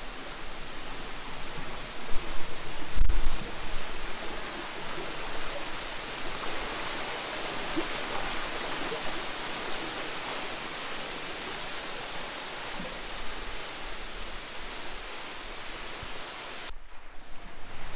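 Small waterfall pouring into a pool in a narrow rock chasm, making a steady rush of falling water. A few low bumps come about two to three seconds in, and the rush cuts off suddenly near the end.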